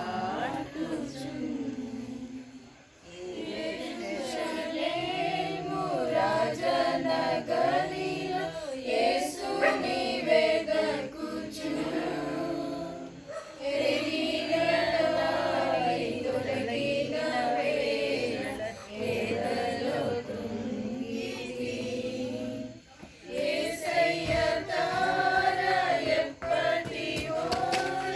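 A group of voices singing a Telugu song together in long phrases, with brief pauses between lines, over a low steady accompaniment.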